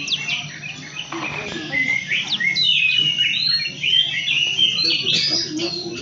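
Bar-winged prinia (ciblek) chirping: a rapid string of short, high chirps and quick sweeping notes.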